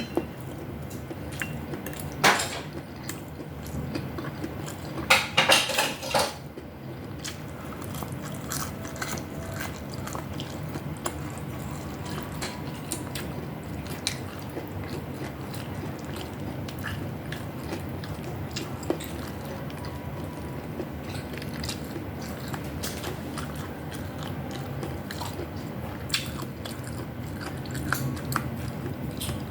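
Close-miked chewing while eating, with sharp clinks of a utensil against a dish about two seconds in and a quick cluster of them around five to six seconds in.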